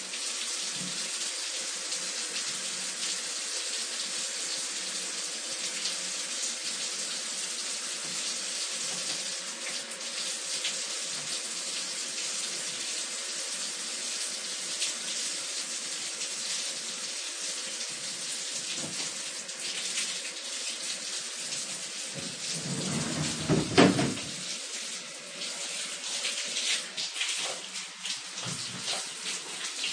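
Shower running: a steady hiss of water spray. About two-thirds of the way through, a louder, deeper rush lasts about a second, and the spray then goes on more unevenly with scattered splashes.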